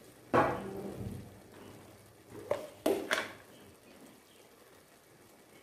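Three sharp knocks of a kitchen utensil against the pan or a container: one about a third of a second in, then two close together around three seconds in. Between them and afterwards there is only the faint simmering of the pan.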